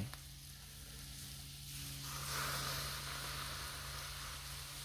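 Chicken broth poured into a hot little cast iron dish on a gas griddle, hissing and sizzling as it hits the hot iron, starting about two seconds in.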